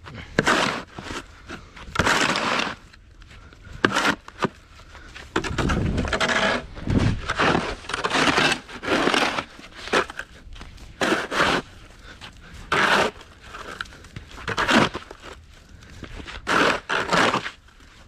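Yellow plastic snow shovel scraping along a concrete sidewalk and breaking up packed snow, in repeated strokes about one a second.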